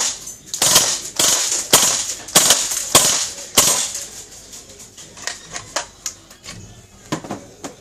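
VFC/Umarex UMP DynamiX gas blowback airsoft submachine gun on green gas, firing about seven single shots roughly 0.6 s apart, each a sharp crack with the bolt cycling. After about four seconds the firing stops and only lighter clicks of the gun being handled follow.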